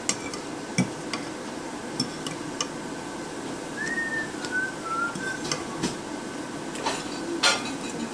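Metal fork clinking and scraping against a ceramic plate while food is scooped up, a scattered series of sharp clicks with the loudest near the end.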